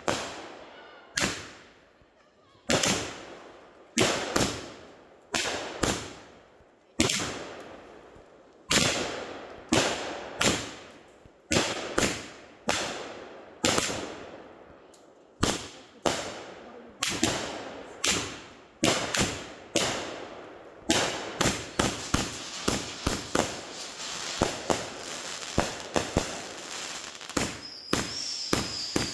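Aerial fireworks cake, a "New York salute", firing shot after shot: sharp bangs that each echo away, at first about one a second and steadily quickening. About three quarters of the way through they break into a dense rapid-fire finale over continuous crackling.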